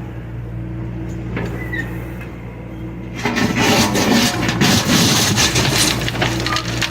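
John Deere excavator's diesel engine running steadily. About three seconds in, a loud, rough crunching and scraping starts as the machine works material with its bucket.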